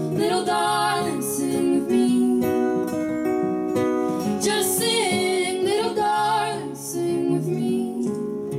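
Two women singing together live over an acoustic guitar played by one of them.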